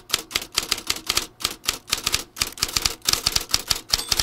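Rapid, uneven clatter of typewriter keystrokes, a typing sound effect over a closing title card. A short bell-like ding comes near the end.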